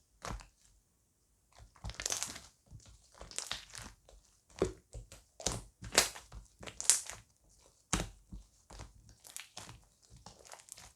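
Foamy slime being squeezed and pressed by hand: a run of about a dozen irregular short squelching, crackling sounds, each under a second, with brief pauses between them.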